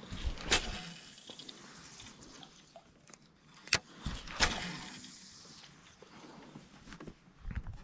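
Fishing rod and spinning reel being handled: a few sharp clicks and two brief rushes of noise, one about half a second in and one about four and a half seconds in.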